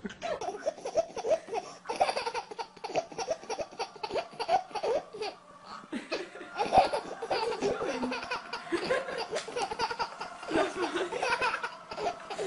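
A baby laughing hard, in short repeated bursts of belly laughter.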